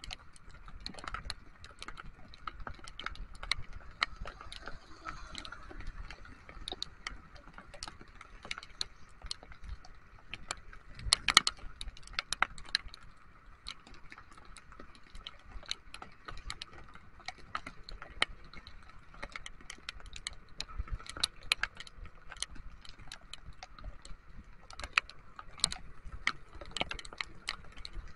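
Raindrops tapping irregularly on a motorcycle-mounted camera and windscreen while riding in rain, with a dense flurry of taps about eleven seconds in, over a faint steady hum.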